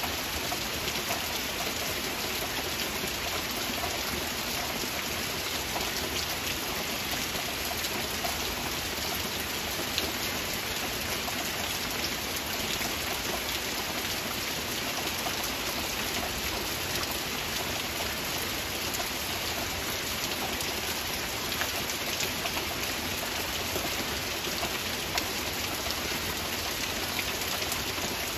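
Heavy rain falling steadily in a forest: an even hiss with a few sharper single-drop ticks standing out now and then.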